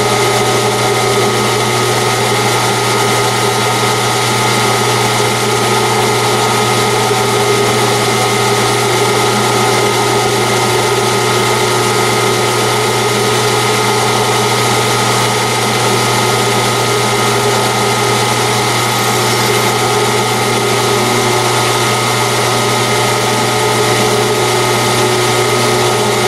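Metal lathe running steadily at low spindle speed, about 70 RPM, set up for a threading pass. Its motor and gear train give a steady mechanical hum with several steady tones over it.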